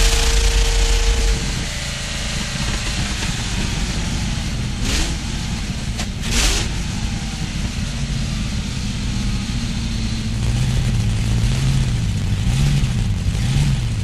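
Auto Union Typ C's supercharged 6-litre V16 racing engine running under way, its note rising and falling repeatedly near the end. Two short bursts of noise break in about five and six and a half seconds in.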